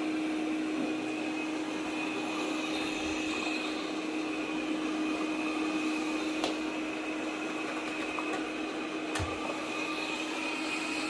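Robot vacuum cleaner running steadily in vacuum mode over a carpet, picking up chow chow fur: an even hum with a high whine over it, and two faint clicks about six and nine seconds in.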